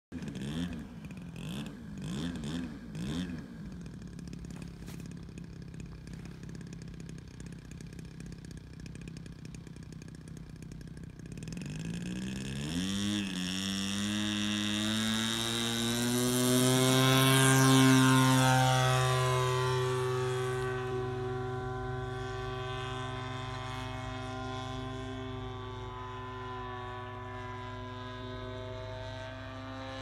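Zenoah ZG-20 two-stroke petrol engine on a radio-control Taylorcraft model plane: blipped a few times at idle, then idling steadily, then opened up to full throttle about 12 seconds in for the take-off run. It is loudest as the plane passes about 18 seconds in, its pitch dropping as it goes by, then runs steadily at high power as it climbs away.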